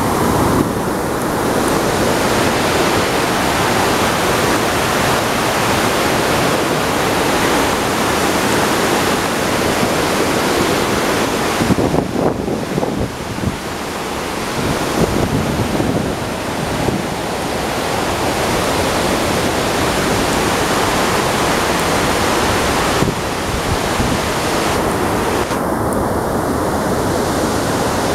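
Loud, steady rush of a large waterfall in heavy flow: a dense, even roar of falling and churning white water, with a brief dip in level about twelve seconds in.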